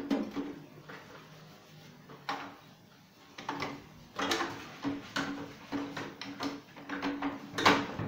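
Plastic control panel of an LG microwave being handled and pushed into place against the sheet-metal cabinet: a series of clacks and knocks, the loudest just before the end.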